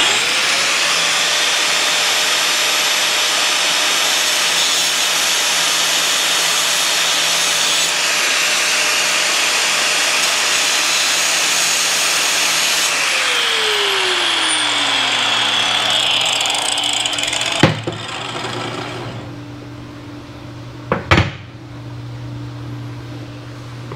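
Angle grinder spinning up and grinding steadily on a big-block Chevy roller camshaft lobe, cleaning up the rolled-over edge before it is TIG welded. About 13 seconds in it is switched off and winds down with a falling whine over a few seconds; near the end come a few sharp knocks.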